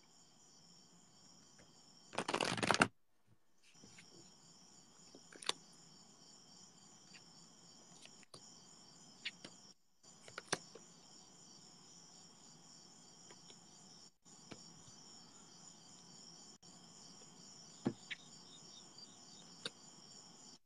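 Tarot cards being shuffled and handled by hand: a short loud riffle of cards about two seconds in, then scattered light card clicks and snaps. A steady high chirring runs underneath.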